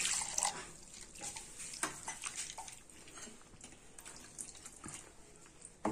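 Water pouring into a stainless steel mixer-grinder jar to rinse out and thin the peanut chutney left in it. The water sound is at the very start and stops within about a second. After it come faint clinks and scrapes of the steel jar and spoon.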